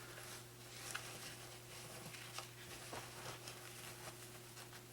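Faint clicks and rustles of pocket knives being handled and set into a knife roll, over a low steady hum.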